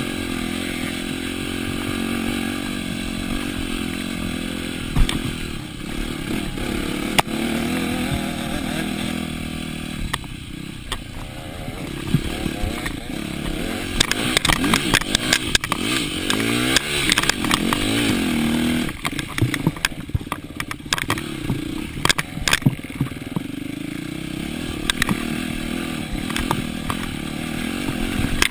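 Yamaha dirt bike engine running under hard riding, its pitch rising and falling as the throttle is worked. Frequent sharp knocks and rattles from the bike bouncing over rough ground cluster in the middle stretch.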